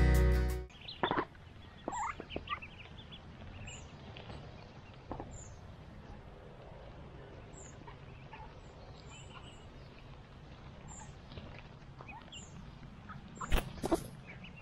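Music fades out in the first second. Then mallard ducklings peep and mallard hens call softly as they forage in the grass, with short high calls repeating about once a second. A few sharp knocks come near the end.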